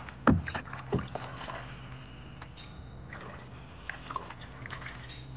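Kayak paddle strokes in the water: splashing and dripping, with two sharper, louder strokes about a third of a second and a second in, then softer drips and splashes.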